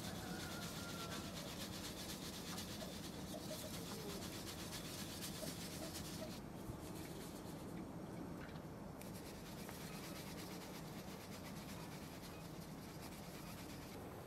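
Flour being sifted through a metal hand sieve into an enamel basin: a steady fine scratchy rustle of the shaken sieve, briefly dropping out about six seconds in, mixed with floury hands rubbing.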